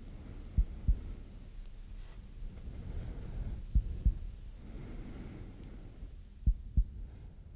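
Slow heartbeat sound effect: three pairs of deep lub-dub thumps, about three seconds apart, over a low hum.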